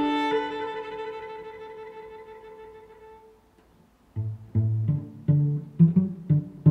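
Background string music: a held chord fades away over the first three seconds, a short silence follows, then a new piece starts about four seconds in with short low string notes in a steady rhythm.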